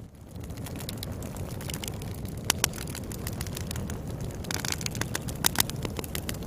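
Wood bonfire burning with a steady low rumble and the crackle and pop of burning firewood, with a few sharper pops about two and a half and five and a half seconds in.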